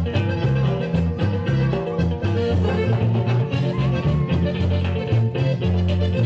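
Upbeat Latin dance music with a steady beat and a strong bass line, an instrumental passage without singing.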